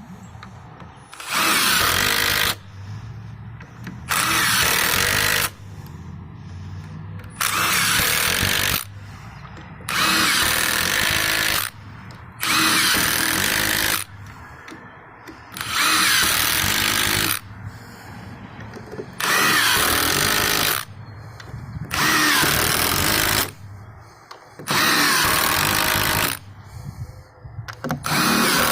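Power drill-driver driving deck screws into pre-drilled holes in deck boards, run in about ten short bursts of roughly a second and a half each with brief pauses between screws.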